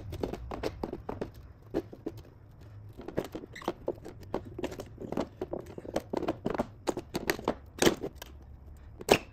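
Handle of a pair of pliers pressing a rubber window seal into an RV window frame's channel: a run of irregular short clicks and scrapes, several a second, with two louder knocks near the end.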